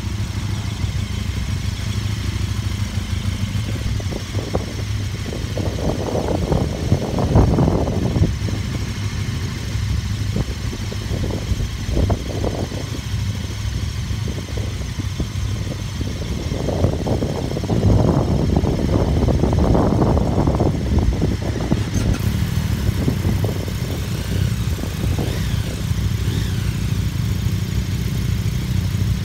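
Several motorcycle engines idling together, with the sound swelling louder twice, about six to eight seconds in and again around seventeen to twenty-one seconds in.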